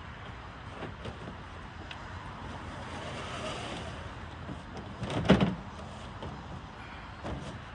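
Knocks and scrapes of a beehive box being shifted on the bed of a pickup truck, with one loud knock a little past five seconds in as the box is set down on the tailgate and a few lighter knocks before and after.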